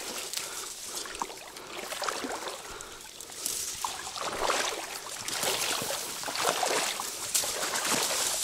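Water splashing and sloshing at the edge of the bank over a sunken log snag. It comes in uneven bursts that get louder from about three and a half seconds in.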